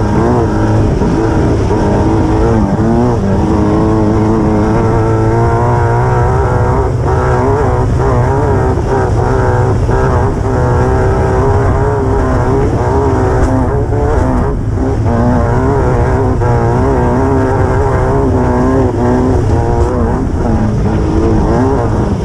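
Onboard sound of a Class 9 desert race buggy's air-cooled VW engine running hard, its pitch rising and falling with the throttle and dipping briefly several times, over a constant low roar of wind and the rough course.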